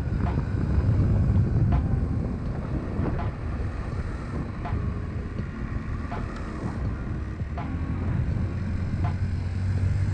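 Wind buffeting the microphone over the low rumble of a Honda Elite CH80 scooter's 80 cc four-stroke engine and tyres as it rides along a street. It eases off through the middle and picks up again near the end. A light click repeats about every second and a half.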